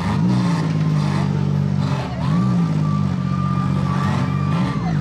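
Several stock compact demolition derby cars' engines running and revving, rising and falling in pitch, with a few short knocks of cars colliding. A high steady whine sounds from about two seconds in until near the end.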